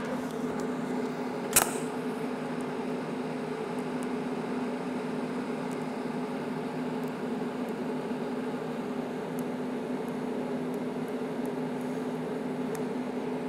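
TIG welding arc from an Everlast PowerTIG 250EX on 304 stainless steel, running with a steady hum while 308 filler rod is fed in to round over sharp corners. One sharp click comes about a second and a half in.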